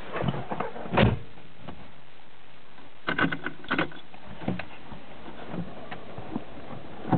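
A few sharp clicks and knocks inside a Land Rover Defender's cab, the loudest about a second in and a quick cluster about three seconds in, over a steady low hiss.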